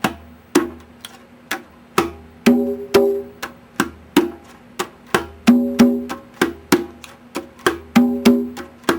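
Hand-played congas in a repeating heel-finger-slap pattern: soft heel and finger strokes alternating with louder, ringing slaps, with a double slap on the lower drum.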